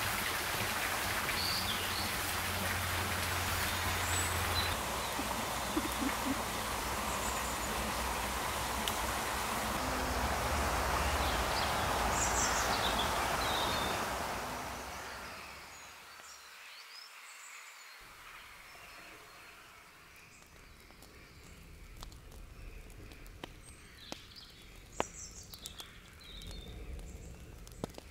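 Steady rush of running water with birds chirping over it, fading away about halfway through. A much quieter stretch follows, with a few bird calls and, near the end, sharp crackles of a wood fire.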